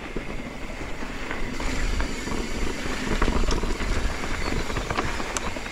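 Mountain bike rolling along a dry dirt and gravel trail: steady tyre noise over the ground with a low rumble and a few sharp clicks and rattles.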